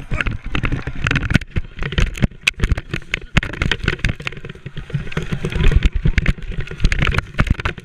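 Irregular thumps, knocks and scraping from a chest-worn action camera as its wearer tumbles and slides headlong down a steep grassy slope, clothing and grass rubbing against the housing.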